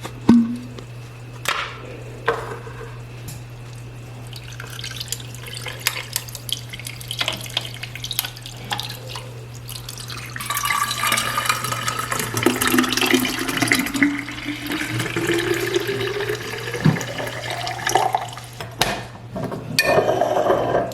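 A few light clinks and taps, then about ten seconds in water starts pouring into a vessel, its pitch rising steadily as the vessel fills. A steady low hum runs underneath.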